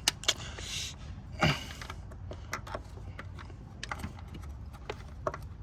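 Scattered light clicks and knocks of metal parts and tools being handled, with one heavier knock about a second and a half in.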